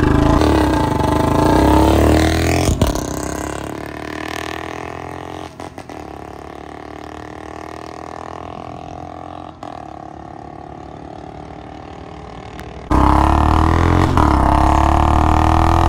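Royal Enfield Bullet 350 single-cylinder engine and a Yamaha R15 V4 accelerating hard from a standing start, heard from the Bullet. The engine sound falls away after about three seconds to a fainter, more distant engine and road noise. About thirteen seconds in, a loud, steady engine drone returns suddenly.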